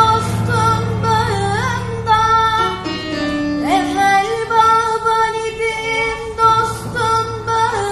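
A female voice singing solo, holding long notes with ornamented turns and a sliding rise about halfway through. A low steady accompaniment sounds under it, dropping out in the middle and returning near the end.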